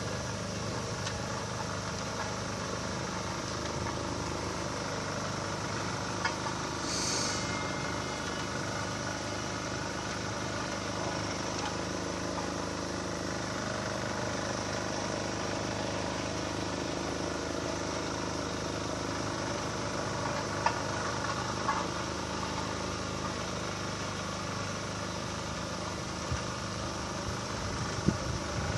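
A vehicle engine running steadily, with a short hiss about seven seconds in and a few sharp clicks near the end.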